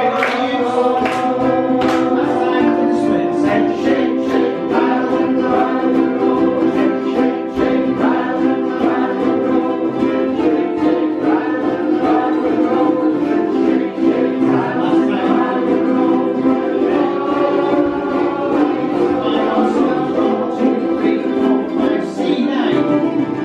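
A ukulele band strumming a rock and roll song together in a steady rhythm, with the group singing along.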